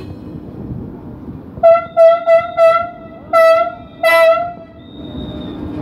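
Horn of an RGV high-speed trainset sounding in a run of blasts over the low rumble of the train rolling past: four short toots in quick succession a little under two seconds in, then two slightly longer ones.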